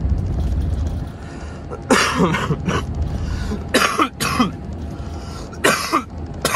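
A man coughing in short fits, about six coughs in three pairs starting about two seconds in, over the steady low rumble of a Volvo FH16 truck cab on the move.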